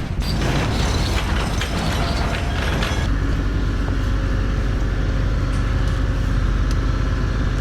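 A vehicle running with a steady deep rumble, with rattling and clatter over the first three seconds before it settles.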